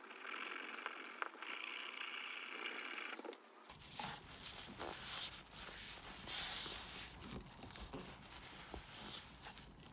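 A maroon abrasive pad scrubbing the carbon-coated crown of a forged piston with lubricant: a steady scratchy rasp. After about three and a half seconds it stops and a cloth wipes the crown with softer, uneven rubbing swishes.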